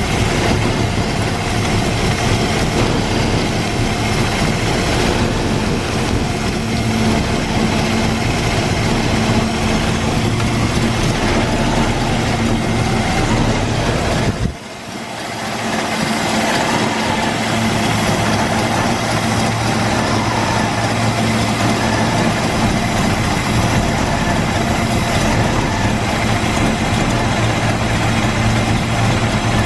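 Car engine idling steadily with its new fan belt on, an idle the owner finds rough. The sound drops sharply about halfway through and comes back within a second or two.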